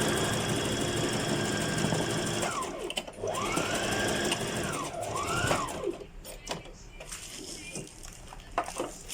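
Electric sewing machine stitching wig hair, run in three bursts: a long steady run, a second shorter one and a brief last one, its motor whine falling away as it slows to a stop each time. A few light clicks follow.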